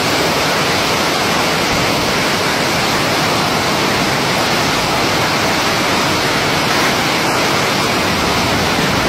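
Flash-flood water surging down a street in a fast torrent: a loud, steady rush of water.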